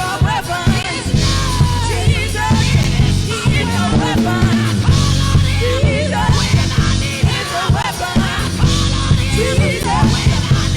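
Live worship band music with a strong steady bass, and vocalists singing over it in wavering, drawn-out lines.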